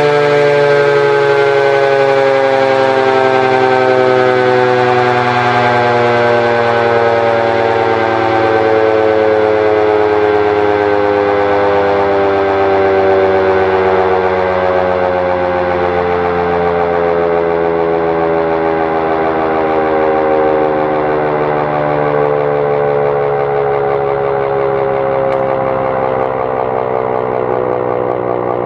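Emergency-alert siren sounding loudly, its chord of several tones falling slowly and steadily in pitch as it winds down.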